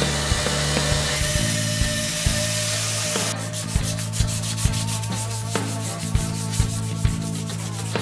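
Belt grinder grinding steel, a rough hiss, over background music with a steady beat.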